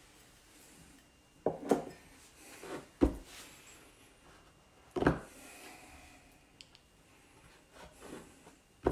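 A handful of short, dull knocks and bumps as a wooden cutting board is handled and shifted on a kitchen countertop.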